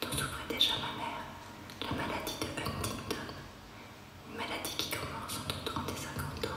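A woman whispering in French, falling quiet for about a second near the middle.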